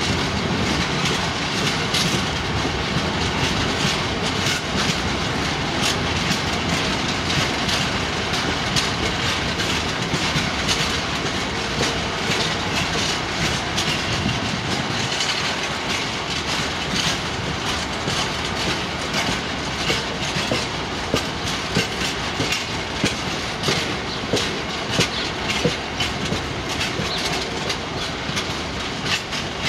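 Freight train of bogie cement tank wagons rolling past at speed: a steady rumble of wheels on rail with rhythmic clickety-clack as the wheelsets cross rail joints, the sharper knocks standing out more in the second half.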